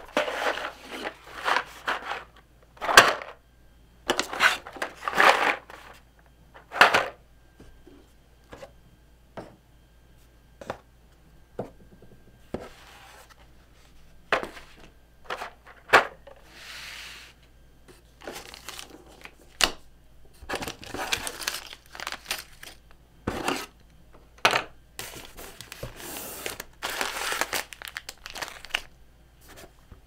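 Small cardboard boxes and packaging handled by hand: repeated bursts of crinkling, tearing-like rustle mixed with sharp clicks and taps as items are picked up and set down.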